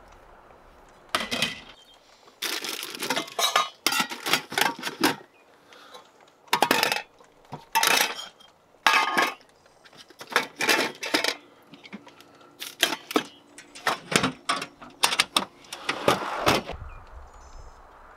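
Camp kitchen gear clinking and rattling as it is rummaged and lifted out of an aluminium storage box: a dozen or so short bursts of metallic clatter with brief pauses between, starting about a second in and stopping near the end.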